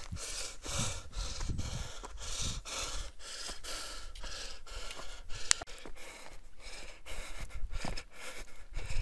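A trail runner panting hard in a steady rhythm, about two breaths a second, with running footfalls on a dirt trail.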